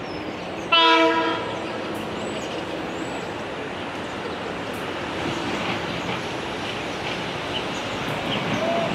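A single short train horn blast about a second in, several pitches sounding together as a chord, over the steady background noise of trains at a station.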